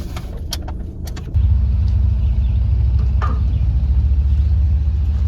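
Wind buffeting the microphone: a loud, deep rumble that surges suddenly about a second and a half in and then holds, with a few sharp clicks in the first second.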